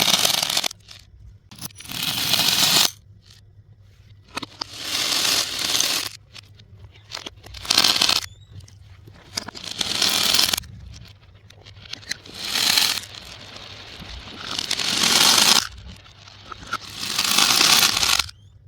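Small plastic beads and balls pouring and rattling in repeated bursts of a second or two each, about eight in all, with short quiet gaps between.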